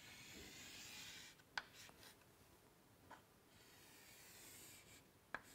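Faint scratch of chalk drawing lines on a chalkboard: one stroke at the start and another near four seconds in, with a light chalk tap between them.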